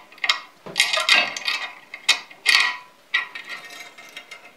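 A wrench working the nuts and bolts that fasten an electric motor to its steel mounting plate: metal clicking and rattling in several short bursts.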